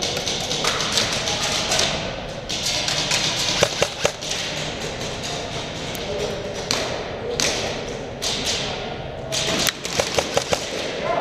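Airsoft gunfire and BB impacts echoing in a large indoor hall: scattered sharp taps and thuds, with a quick string of several shots near the end, over rustling of gear.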